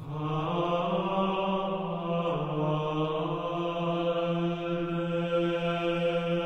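Gregorian chant of a Passion responsory, sung in unison. A new phrase begins with long held notes, and the melody steps down in pitch about two seconds in.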